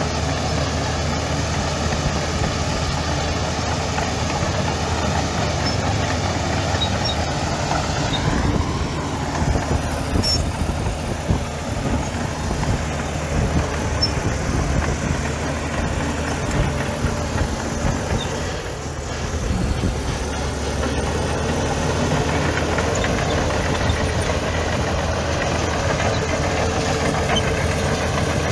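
Diesel engine of heavy earthmoving machinery running steadily. The revs rise briefly about eight seconds in, and the level dips for a moment about nineteen seconds in.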